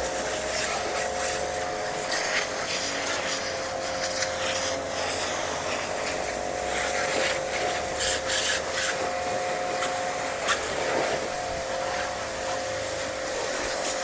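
StarQ ST-25 2100-watt electric pressure washer running with a steady whine while its gun sprays a hissing jet of water over a muddy motorcycle. This is the plain-water rinse before soap.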